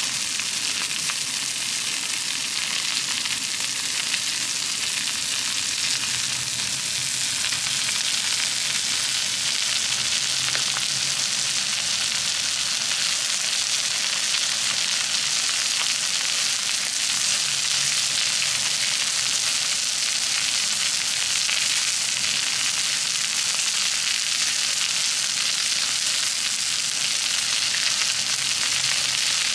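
Chicken steak frying on a small black iron griddle plate: a steady sizzle with fine crackling of spitting fat.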